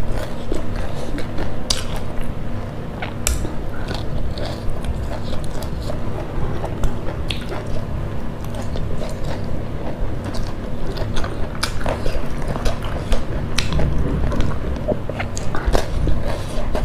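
Loud chewing and biting of food (fried fish and boiled string beans eaten by hand), with many small clicks and smacks of the mouth throughout.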